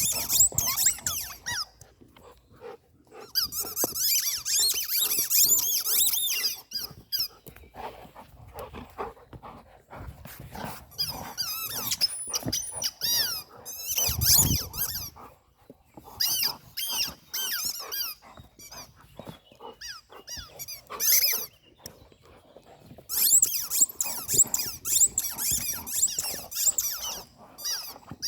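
Rubber squeaky toys squeaked over and over by dogs chewing on them, in uneven runs of rapid, high, wavering squeaks with short pauses between.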